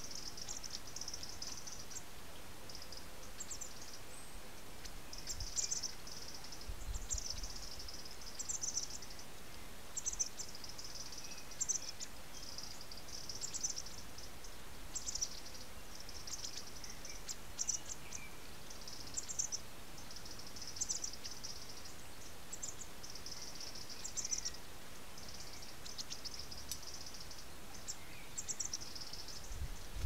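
Fledgling blackbird's begging calls: short clusters of very high, thin notes repeated about every one to two seconds, over a steady background hiss.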